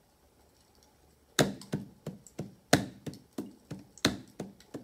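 Hand drum struck with the palms in a steady beat of about three strokes a second, every fourth stroke louder, starting about a second and a half in.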